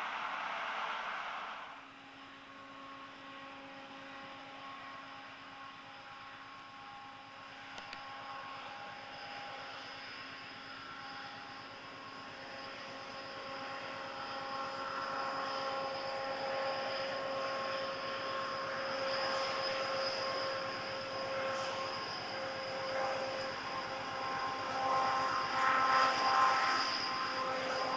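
Soviet-built V300 'Ludmilla' diesel locomotive working under load at the head of a loaded sand train: a steady engine drone with several high whining tones, growing louder as it approaches. A short hiss at the start cuts off about two seconds in.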